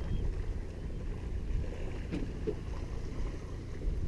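Wind buffeting a chest-mounted GoPro's microphone on an open boat, a steady low rumble, with a couple of faint clicks a little after two seconds in.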